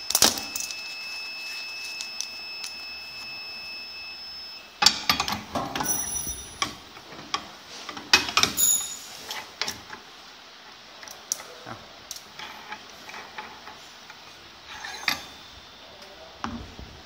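An AX YDA automatic injection machine gives a steady high-pitched beep for about four and a half seconds, which then cuts off. This is followed by a run of metallic clicks, clunks and knocks as the cartridge and hand-wheel clamp are handled, thinning to occasional faint clicks.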